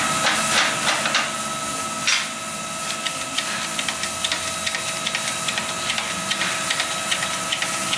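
Shop press fitting a bearing into a heated rotary-engine rotor: a steady whine and hum with many small metallic clicks and ticks.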